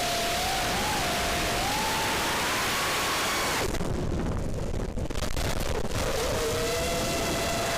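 FPV quadcopter's brushless motors whining over a loud rushing of wind and prop wash, the pitch gliding up and down with the throttle. About three and a half seconds in, the rushing hiss drops away as the throttle is cut, and the motor whine carries on lower and steadier.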